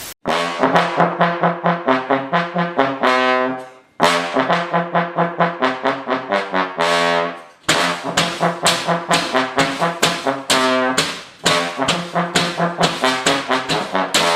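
Brass-instrument music playing quick, short notes at about four a second, in three phrases with brief breaks about four and seven and a half seconds in.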